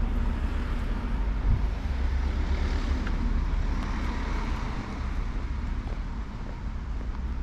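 Wind buffeting the microphone over outdoor background noise: a steady low rumble, with a swell of hiss about three to five seconds in.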